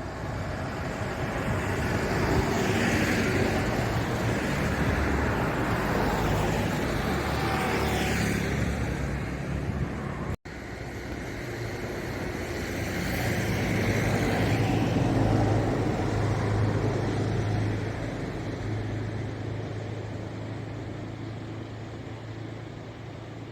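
Road vehicle noise, a steady rushing that swells and fades twice, with a low hum in the second half and a brief cut about ten seconds in.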